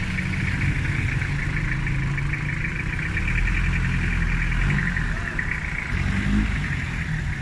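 Nissan TD27 four-cylinder diesel engine running steadily at idle with its rebuilt, freshly re-timed injection pump.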